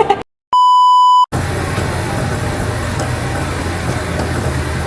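A short electronic beep, one steady high tone under a second long, right after a sudden cut to silence. Then a steady low rumble with road noise, as inside a moving car.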